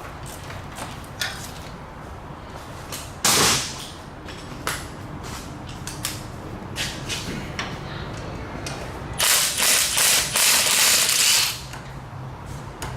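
Metal tools clicking and clinking during work on broken exhaust manifold bolts, with a short blast of a power tool about three seconds in and a longer, stuttering run of it lasting about two seconds near the end.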